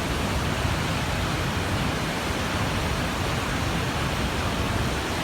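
Waterfall: a steady, loud rush of falling water with no let-up.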